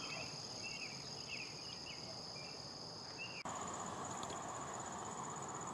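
Summer insects droning steadily at a high pitch, with short chirps repeating about twice a second over the first half. About halfway through, the drone changes abruptly and grows fainter.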